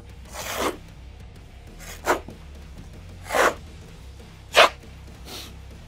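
Steel trowel scraping and spreading mortar across a wall in five separate swipes at uneven intervals, the loudest about three quarters of the way through.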